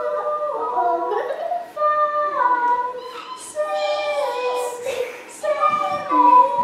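A woman and young children singing a simple melody together, in short held notes that step up and down.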